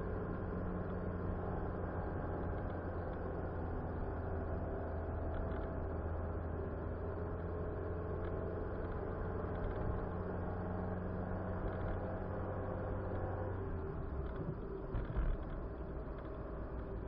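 Car driving: a steady engine hum with road noise. About fourteen seconds in the engine note drops, followed shortly by a couple of short knocks.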